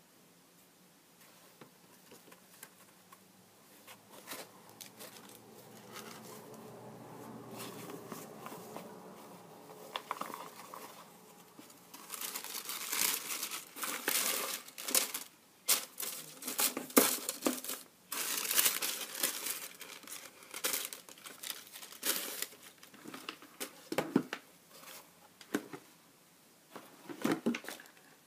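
Tissue paper crinkling and rustling as it is handled and pulled away from a shoe. It is soft at first, then loud, rapid crinkles come in bursts from about halfway through until just before the end.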